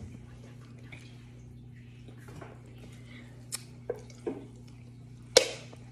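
Quiet eating at a table: scattered soft clicks and taps of food being handled and chewed, with a sharp click about five and a half seconds in, over a steady low electrical hum.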